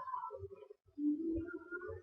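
Background music with held notes over a low, irregular beat.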